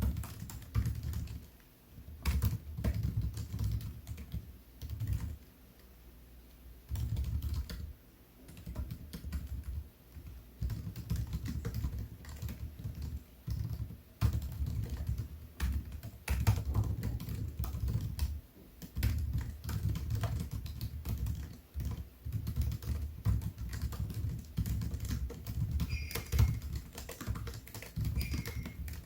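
Typing on a MacBook Air keyboard: runs of rapid key clicks broken by short pauses, with a few brief high-pitched squeaks near the end.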